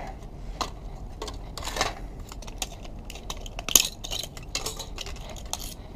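Plastic clips on a CRT deflection yoke's housing being snapped and pried off by hand to free the copper coils: irregular sharp clicks and clatters of hard plastic, the loudest a little under four seconds in.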